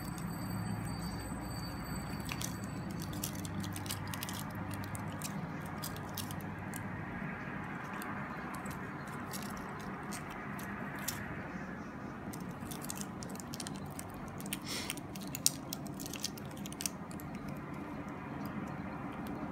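Handling noise from a stainless steel link watch bracelet being turned in the hands: scattered small clicks and rustles, with one sharper click about fifteen seconds in, over a steady low background hum.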